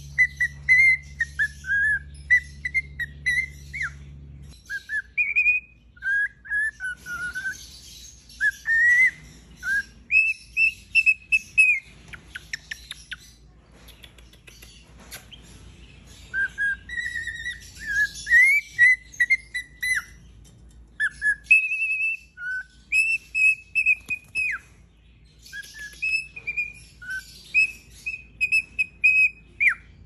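Cockatiel singing: long runs of short whistled notes, some held level and some sliding up or down, grouped into phrases with a few brief pauses.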